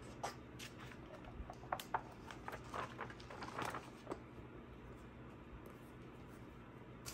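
Faint paper rustles and light taps of a journal's lined pages being flipped through by hand, a quick run of soft page flicks over the first four seconds or so.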